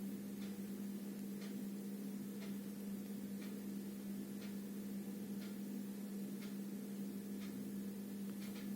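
Cassette player running with no music yet: a steady low hum, and a faint tick about once a second.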